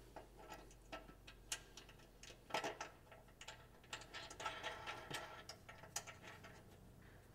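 Faint, irregular metal clicks and ticks as a nut is threaded by hand onto an eyebolt in a steel plow-blade bracket, the parts tapping against the bracket.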